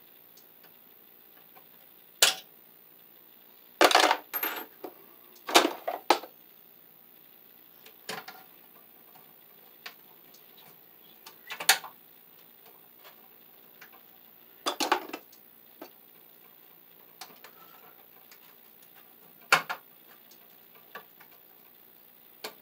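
Pliers and a bare copper ground wire clinking and scraping against a steel electrical sub-panel box as the wire is bent and pushed into place. The sharp metallic clicks come irregularly, a few close together about four and six seconds in and single ones later.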